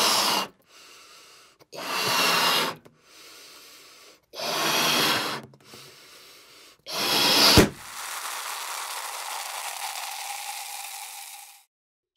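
Balloon being blown up in four long puffs of air, with faint hiss between them, then a sharp pop about seven and a half seconds in as it bursts, followed by a steady hiss lasting about four seconds.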